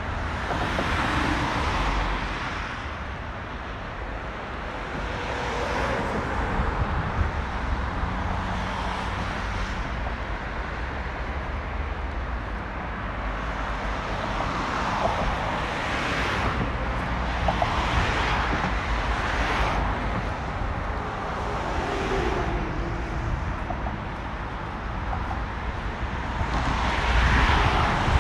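Road traffic on a multi-lane road: a steady hiss of tyres and engines, swelling several times as cars and lorries pass and fading again.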